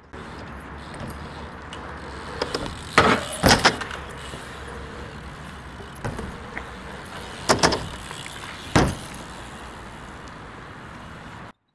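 BMX bike riding on a concrete skatepark: a steady rushing of tyres rolling, with sharp knocks and clatter of the bike hitting the ramps, a cluster about three seconds in and two more near seven and a half and nine seconds in.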